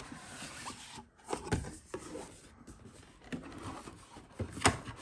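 Cardboard packaging sliding and rubbing as a box is opened: a sleeve slid off and the lid lifted, with a few soft knocks and one sharp tap near the end.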